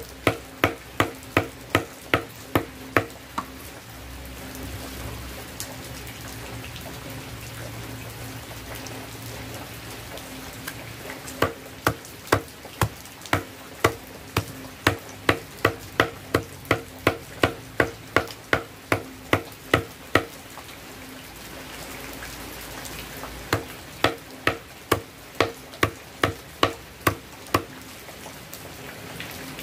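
Machete blade chopping fermented coconut husk fibre against a stone block, in runs of quick, even strikes about two or three a second. The chopping stops about three seconds in, starts again around eleven seconds in, pauses briefly just past twenty seconds and then goes on.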